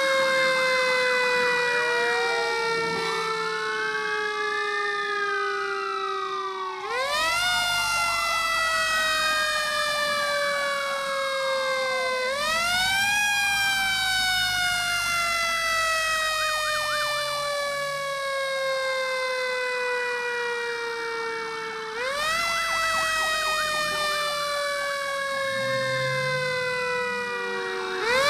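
Fire engine sirens. One keeps jumping up in pitch and sliding slowly down, restarting every five to ten seconds, while a second siren wails up and down more quickly alongside it.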